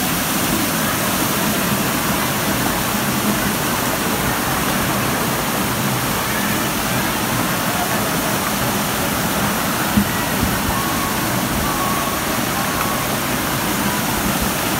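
Running water: a steady, even rushing.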